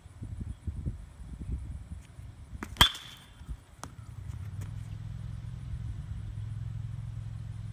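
A baseball bat hitting a ball once about three seconds in: a single sharp crack with a brief ringing ping. From about four and a half seconds a steady low engine hum sits underneath.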